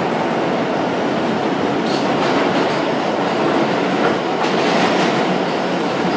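R160B subway car running at speed through a tunnel: a steady, loud rumble of wheels on rails, with light clicks now and then.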